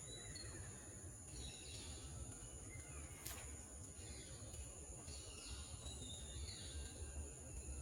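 Outdoor garden ambience: scattered short bird chirps over a steady high-pitched insect drone, with one sharp click about three seconds in and a low rumble underneath.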